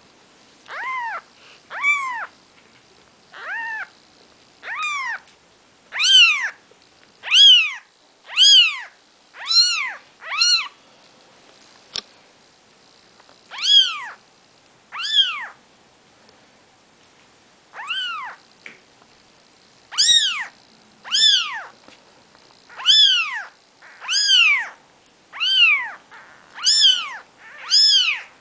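Four-day-old Maine Coon kittens mewing: a string of high, short mews, each rising then falling in pitch, about one a second with a couple of short pauses.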